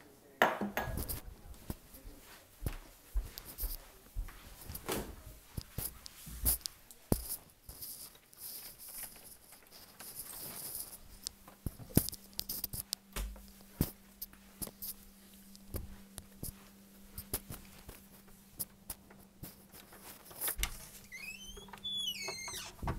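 Footsteps and knocks of a hand-held phone being carried while walking through a house, irregular clicks and thumps throughout. A steady low hum comes in about halfway through, and a few squeaky falling glides sound near the end.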